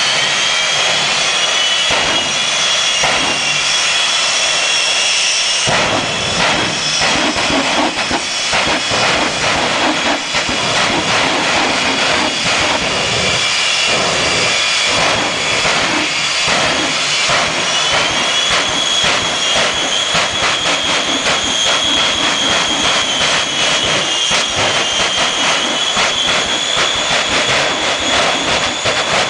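Jet engines of two drag-racing jet trucks running loud at the start line, with a high steady whine. About six seconds in, a rough, crackling rumble joins as they throttle up and blast flame from the exhaust, and the whine climbs again later.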